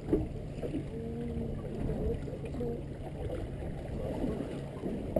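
Steady low rumble of wind and sea around a small drifting boat, with water sloshing against the hull.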